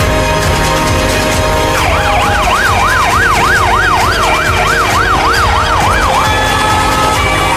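Fire engine's electronic siren on a fast yelp, sweeping rapidly up and down about three times a second, starting about two seconds in, then changing to a steadier held tone near the end.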